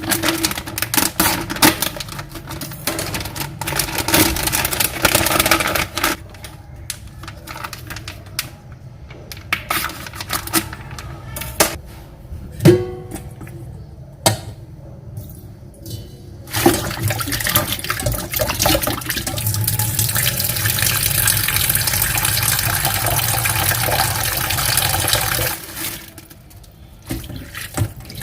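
Kitchen prep sounds: scattered clatters and knocks of utensils and ingredients being handled, then a tap running water into a sink for about nine seconds in the second half, stopping near the end.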